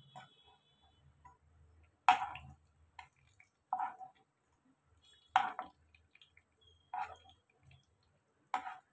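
A slotted metal skimmer knocking against a frying pan as bhajiyas are turned in shallow oil: five sharp clacks about a second and a half apart, over faint frying.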